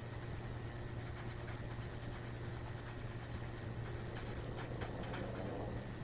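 Steady hiss and a low electrical hum, with a few faint ticks, from an unfiltered field recording played with no noise reduction applied.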